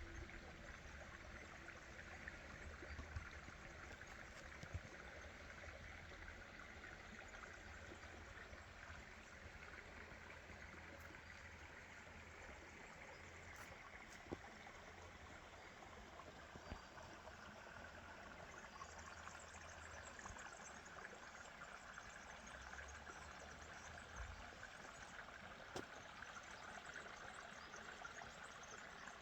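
Faint, steady running water of a small stream, with a low rumble underneath and a few light clicks.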